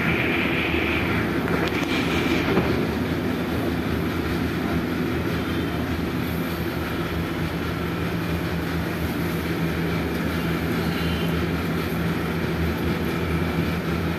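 Steady mechanical drone with a low hum, with a brief brighter rise at the start and again around two seconds in.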